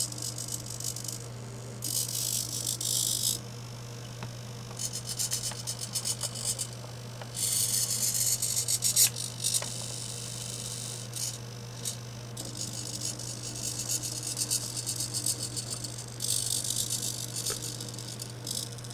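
Two SG90 micro servos moving a pan-tilt camera mount: their small geared motors whir in repeated high-pitched bursts of a second or two, some smooth and some broken into fast buzzy ticking, over a steady low hum.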